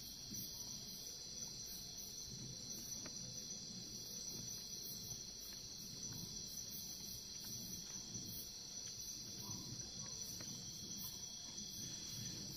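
Night-time insect chorus: a steady high-pitched cricket trill with an even, pulsing buzz above it, over a faint low rustle with a few small clicks.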